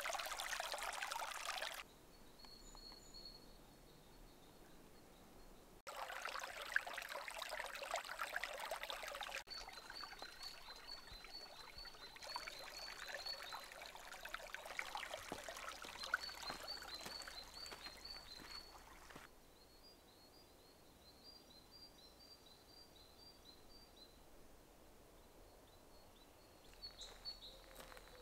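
Shallow creek water running over stones, faint, cutting in and out in stretches. A small bird's short high chirps repeat through it, and a few sharp clicks come near the end.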